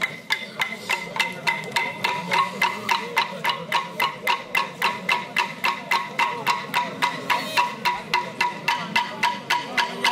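Hardwood clapsticks beaten in a steady, fast rhythm of about four strikes a second, each strike ringing with a bright wooden tone, keeping time for a ceremonial song. Voices sing low beneath the sticks.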